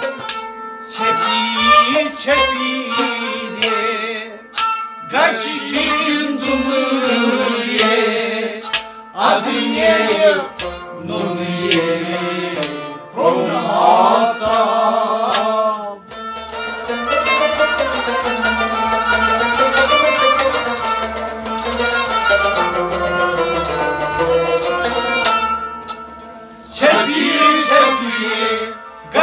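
Men singing a Kashmiri Sufi kalam in wavering, ornamented phrases, with the singing breaking off briefly a few times. Under the voices a clay pot drum (nout) is struck by hand.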